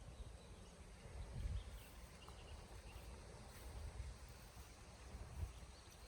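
Faint outdoor ambience: a low rumble with a few soft low thumps, and a few faint bird chirps about two to three seconds in.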